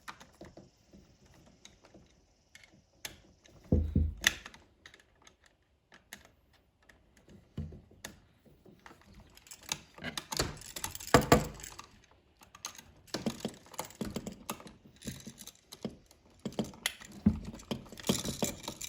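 Irregular clicks, scrapes and small rattles of a wall switch and its wires being worked loose from an electrical box, heaviest about ten seconds in and again near the end.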